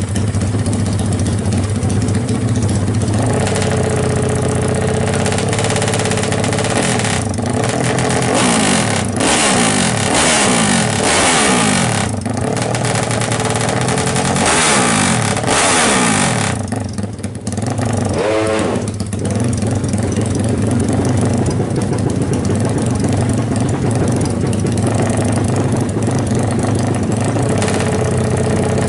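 Yamaha MX King four-stroke single, bored up to 321 cc for drag racing, running loud and steady at the start line. It is blipped several times through the middle, the revs rising and falling, before it settles back to a steady run.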